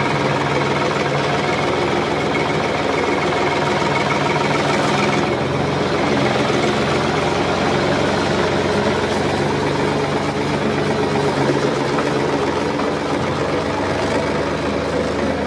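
Combine harvester's engine and machinery running steadily under load, a dense mechanical drone with a rattling edge.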